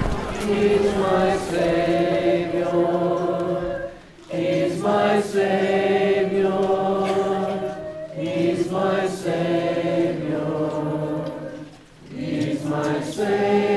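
A group of people singing a hymn together in long held phrases, with a short break about every four seconds.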